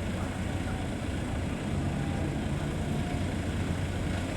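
A large engine running steadily, giving a low, even hum under a wash of outdoor noise.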